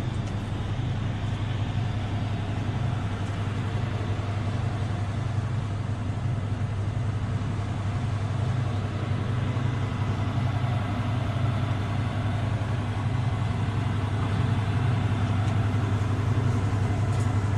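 Large mining excavator's engine and cooling fans running steadily: a deep, even hum with a broad rush over it, growing a little louder near the end as the fan grilles come close.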